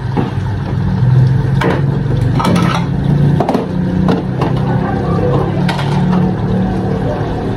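Steel pot of water with whole spices heating just short of the boil: a steady low rumble with scattered crackles and ticks, about half a dozen, from bubbles forming and collapsing.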